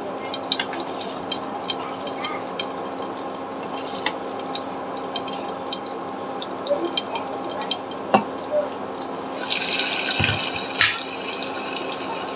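Battered cubes of steamed potato-and-flour roll deep-frying in hot oil in a kadai: steady sizzling full of small crackling pops, which thicken for a couple of seconds near the end.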